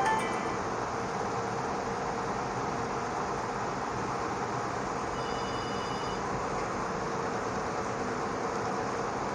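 Steady rushing background noise with a faint low hum, and a few faint high tones about five seconds in.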